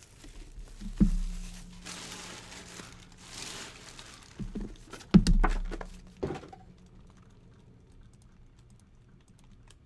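Sealed baseball card boxes being handled and set down on a table: two solid thuds, about a second in and about five seconds in, with rustling and crinkling of the boxes between them, then only faint light clicks.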